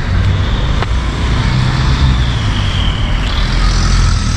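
A steady low rumble with a faint high whine that jumps up in pitch about three seconds in.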